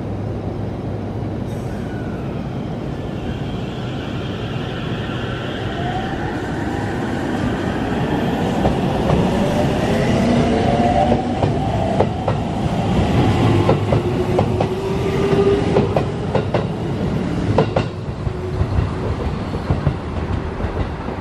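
Aichi Loop Railway 2000 series electric train pulling out: a steady hum while it stands, then the VVVF inverter and traction motors whining upward in pitch as it gathers speed, with the wheels clicking over rail joints as the cars pass. The sound drops away near the end as the train leaves.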